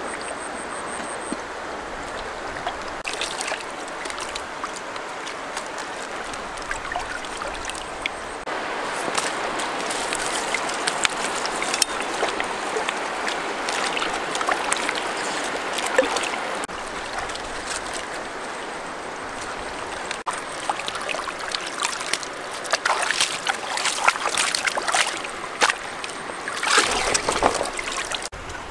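Shallow stream running over stones, with hands splashing and sloshing in the water as food is washed in it; the splashing is heaviest in the last few seconds.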